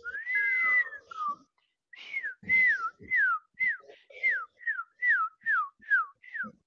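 A person whistling through the lips in imitation of a bird's tweet: one long arching note, then a run of about ten short whistles, each dropping in pitch, about two a second.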